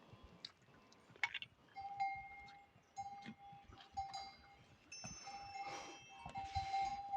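Bells hung on pack horses ringing faintly and irregularly as the horses walk, each ring a clear held tone that is struck again about once a second.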